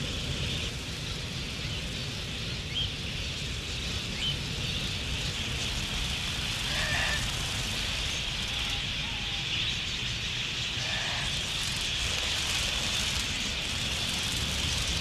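A large flock of wild budgerigars chattering together, a steady high twittering mass, with a few single calls standing out and the flock sound growing slightly louder near the end.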